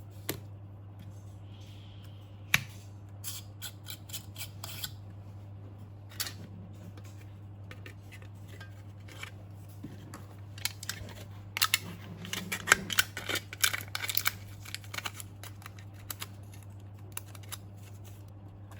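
Scattered sharp clicks and snips of small hand work on the bulb's parts, with a dense flurry of them near the middle, over a steady low hum.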